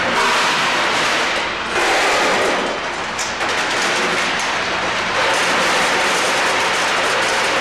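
Tridyne F-206 high-speed packaging machine running, with hard dog bone treats rattling through its feeders and chutes into cartons: a dense, continuous mechanical clatter.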